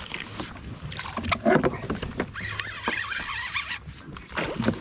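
A fight with a big snakehead from a kayak: irregular knocks and rattles of gear on the kayak hull and water sloshing, with a wavering high squeal in the middle that fits the baitcasting reel's drag slipping as the fish takes line.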